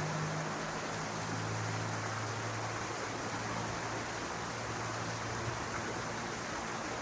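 Steady rushing background noise with a low, even hum underneath that fades out about five seconds in.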